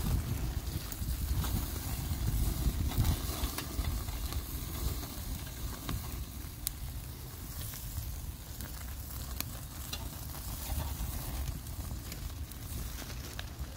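Burger patties sizzling on the grate of a small charcoal grill, a steady hiss with a few sharp ticks scattered through it, over a low rumble that is strongest in the first few seconds.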